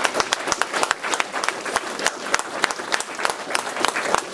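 Audience applauding: many hands clapping in quick, overlapping claps.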